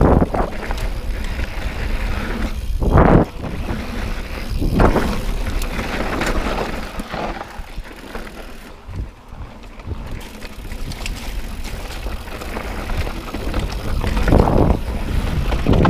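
Mountain bike rolling fast down a dirt trail: wind rushing over the camera's microphone, with the tyres running over dirt and the bike rattling and knocking over bumps. It swells louder a few times, about three and five seconds in and again near the end.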